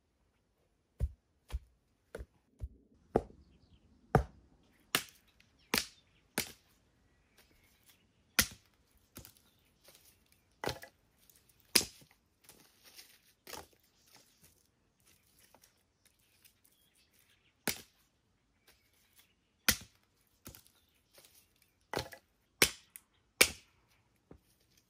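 Sticks of firewood being chopped with a small hand blade: sharp, irregular blows with pauses between, coming thick in the first few seconds and again near the end, with quiet wood-handling noises in between.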